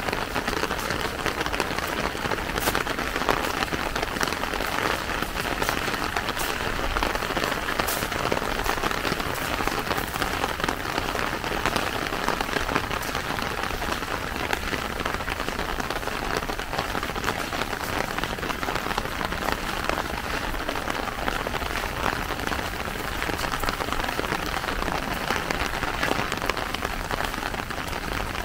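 Steady rain falling, a dense even hiss with scattered sharper drop ticks.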